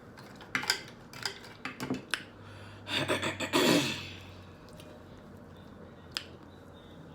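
Eating sounds at a table: a few sharp clicks and clinks of dishes or cutlery, then a louder noisy stretch of about a second around three seconds in.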